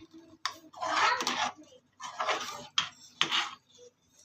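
Metal spoon scraping and clinking against a kadhai while stirring melting ghee: a few short scraping strokes with sharp clinks between them.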